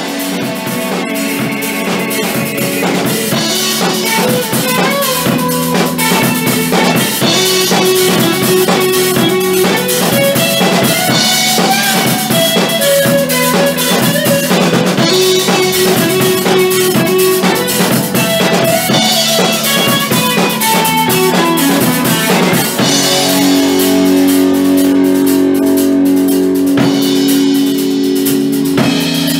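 Indie rock band playing: electric guitar, bass guitar and drum kit, recorded on a mobile phone at rehearsal. The loudness builds over the first few seconds, and from about 23 s in long held chords ring over the beat.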